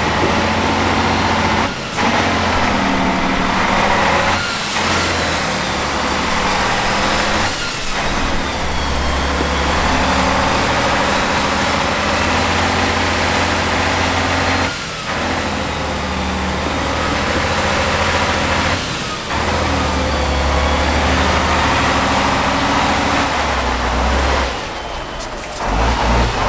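Diesel engine of a Tatra 8x8 trial truck working under load as it crawls through deep mud. The engine speed steps up and down every few seconds, with several brief breaks.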